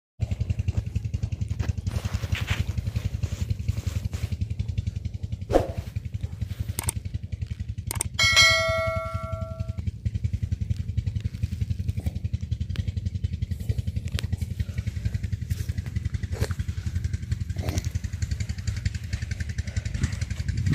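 A steady low mechanical throb, like an engine running, with a single metallic bell-like ding about eight seconds in that rings on for over a second, and a few sharp clicks.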